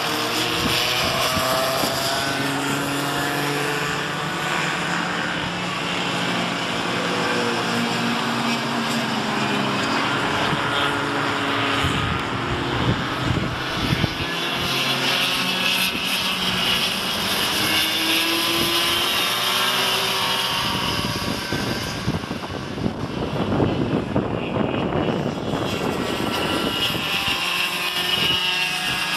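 Several cadet go-karts' small two-stroke engines buzzing at racing revs, their pitches overlapping and rising and falling as the karts accelerate, brake and pass along the circuit. Two rougher, louder stretches come about halfway through and again a few seconds before the end.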